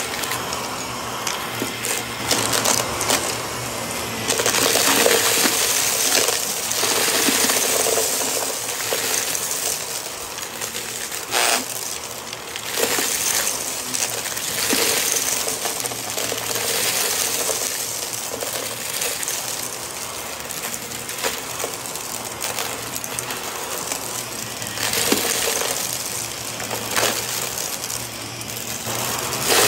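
Vacuum cleaner running on a shag rug, its motor humming steadily under constant crackling and rattling as grit, glitter and small stones are sucked up.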